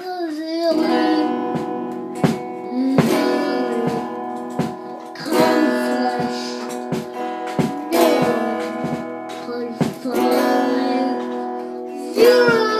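A young child sings into a microphone while strumming chords on a small electric guitar played through an amplifier. The chords are struck at a steady pace, roughly once a second, and ring on between strums.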